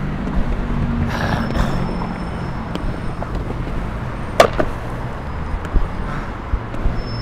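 Longboard wheels rolling over paving slabs and road, a steady rumble under passing traffic, with one sharp clack about four and a half seconds in and a few smaller knocks after.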